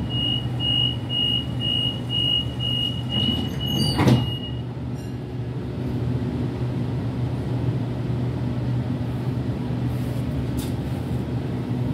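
Train door-closing warning: a rapid series of high beeps for about four and a half seconds, and the sliding doors thud shut about four seconds in. A steady low hum of the train runs underneath.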